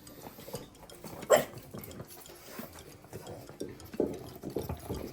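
Pugs licking a stainless steel bowl clean, the bowl clattering and scraping as they push it about, with one short, louder sound about a second and a half in.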